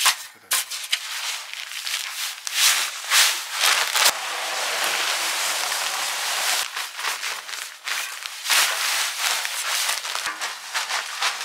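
Steel shovel blades stabbing and scraping through sand and dry cement powder, many short scrapes with a longer continuous scrape midway: cement being turned into sand by hand, the dry-mix stage of hand-mixed concrete.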